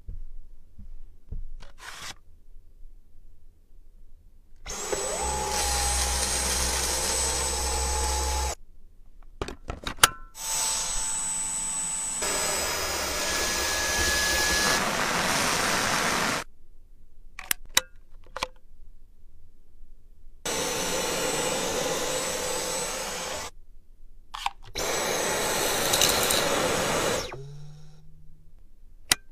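Vacuum cleaner motor running in four separate stretches of a few seconds each, a steady rush of air with a thin high whine, each starting and stopping abruptly, with quieter clicks and handling sounds between them.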